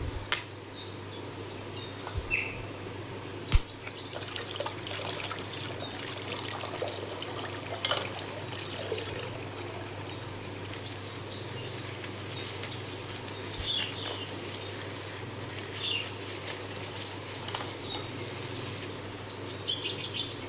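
Water pouring and trickling out of a punctured plastic bag, with birds chirping in the background. A sharp click about three and a half seconds in.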